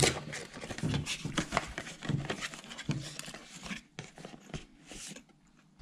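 Irregular crinkling, rustling and short clicks of a cardboard pastry box and its wrapping being handled and opened, with a quiet moment near the end.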